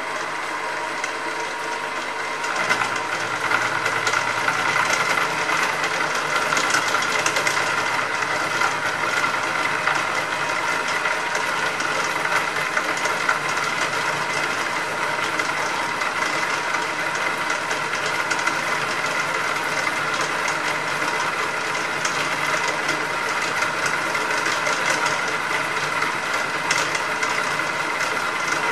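Hare and Forbes HM48 milling machine running, its cutter biting into the metal workpiece about two and a half seconds in on a deeper pass, then cutting steadily with a high ringing tone over the motor's hum.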